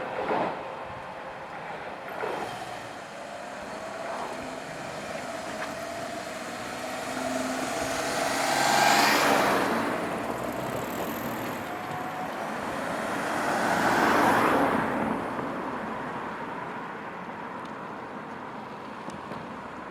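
Road traffic at a level crossing: two vehicles drive past, one about nine seconds in and another about fourteen seconds in, each swelling and fading away.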